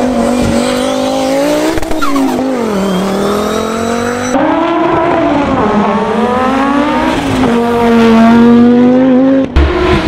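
Audi Sport Quattro S1's turbocharged inline five-cylinder engine pulling hard, its pitch climbing through each gear and dropping at the shifts, over several short clips cut together.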